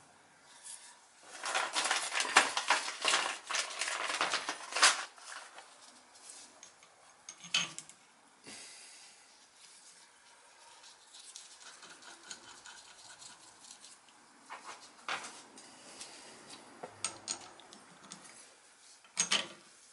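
Metal plumbing fittings on a boiler's circulator pump flange clinking and rattling as they are handled and fitted by hand. A dense run of clinks comes in the first few seconds, followed by a few scattered single clicks and knocks.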